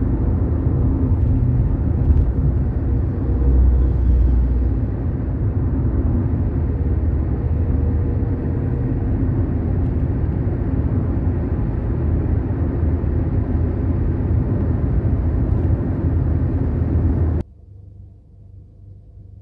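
Steady in-cabin road noise of a Toyota Yaris/Vios cruising on a highway: a low rumble of tyres and engine. It cuts off abruptly a couple of seconds before the end, leaving a faint low hum.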